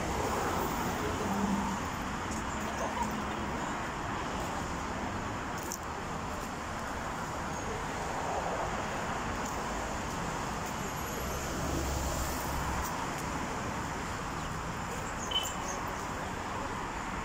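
Steady hum of road traffic with low rumble that swells and fades, and one brief sharp click near the end.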